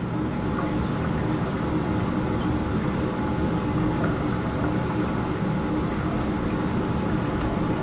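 Steady background hum and rush of a running machine, with a few faint steady tones in it and no distinct knocks or clicks.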